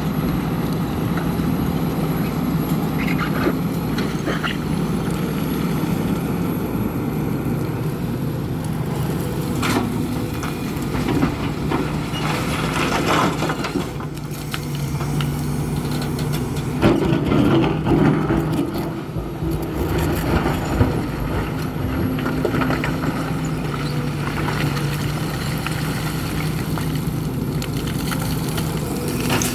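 Hidromek HMK 410LC excavator's diesel engine running steadily under hydraulic load, its tone shifting as it works, with stones knocking and clattering now and then and a heavier spell of clatter a little past halfway.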